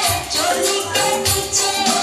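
Music with a steady, regular beat and held melodic tones.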